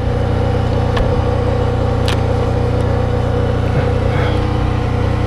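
An engine running steadily at a constant speed, with a couple of short clicks about one and two seconds in.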